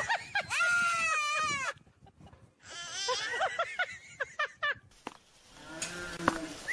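A young goat bleating in long quavering calls and a toddler shrieking back at it in turns, a run of short calls after a brief pause. About five seconds in this gives way to softer outdoor noise.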